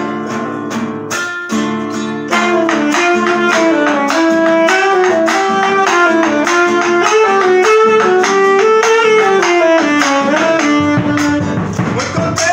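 Instrumental opening of an Argentine gato: acoustic guitar strumming the rhythm while a tenor saxophone plays the melody. A bombo legüero drum joins near the end.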